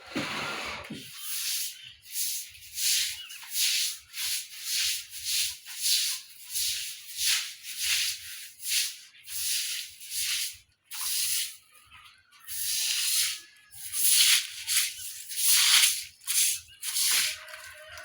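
Brisk sweeping strokes on a floor, about two a second, with a short pause about eleven seconds in.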